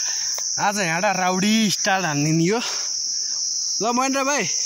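Insects droning steadily at a high pitch, one unbroken shrill hum. A man's voice speaks three short phrases over it.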